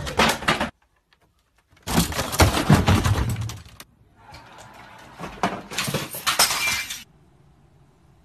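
Loud crashing and clattering of household objects being knocked down and falling, in three bursts: a short one at the start, then two longer ones, the last loudest just before it stops about seven seconds in.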